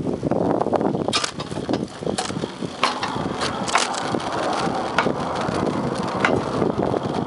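Fairmont railroad speeder rolling along the track: a steady rumble of steel wheels on the rails, with sharp clicks and clanks at irregular intervals.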